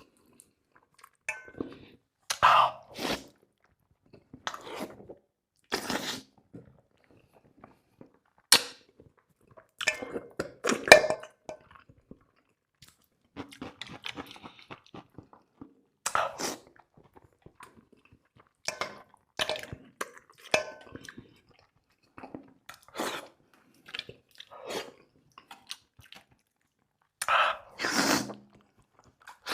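Close-miked chewing and crunching of garlic rabbit meat, in irregular bouts with short pauses between bites.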